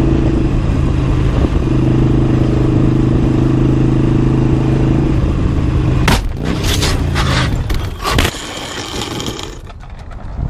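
Motorcycle engine running steadily at highway speed. About six seconds in, the bike crashes: a quick series of loud bangs, then scraping as it slides along the road for a second or so, dying away to wind noise near the end.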